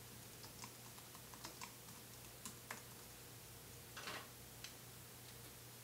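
Faint typing on a computer keyboard: quick key clicks at an uneven pace, with a slightly longer clatter about four seconds in.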